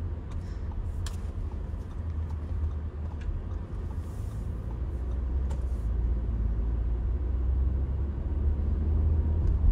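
Cabin sound of a 2022 Audi Q5 with a 2.0-litre turbocharged engine, driving off: a steady low engine and road rumble that grows gradually louder as the car picks up speed, with a few faint clicks.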